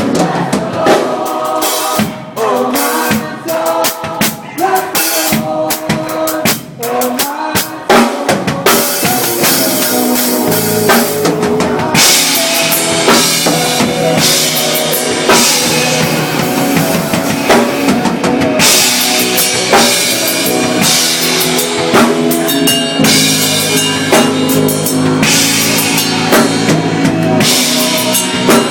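A band with a drum kit playing at a sound check. For the first several seconds the playing is choppy, with short breaks between drum hits and phrases; after that the full band plays without stopping.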